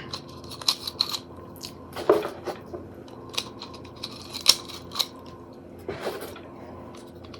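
Training projectiles being pressed one by one into a Byrna SD pistol magazine: a series of irregular small plastic clicks and knocks from handling the rounds and magazine.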